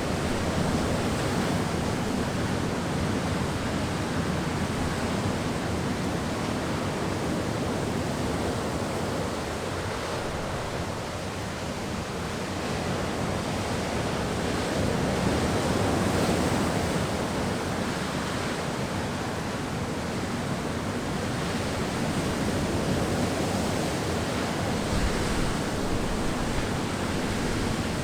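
Wind sound effect: a steady rushing of wind that slowly swells and eases, dipping about a third of the way in and strengthening again a little past the middle.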